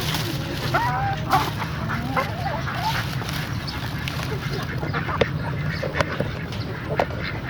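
Domestic fowl calling, with short wavering calls over the first three seconds and scattered sharp ticks later, over a steady low background hum.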